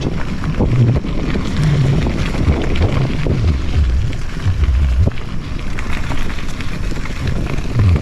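Wind buffeting the microphone as a mountain bike rolls along a dirt trail, over a low rumble and rattle from the tyres and frame on the uneven ground. There is a single sharp knock about five seconds in.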